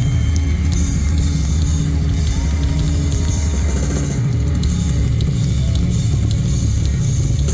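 Live rock band playing a loud instrumental passage: drum kit, distorted electric guitars and bass, without vocals.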